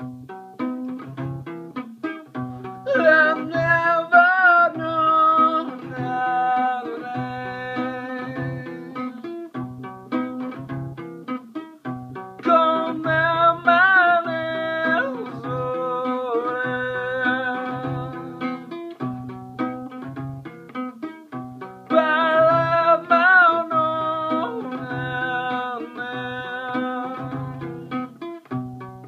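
Guitar picked in a steady rhythm while a man sings along in three phrases of several seconds each, with pauses between them where only the guitar plays.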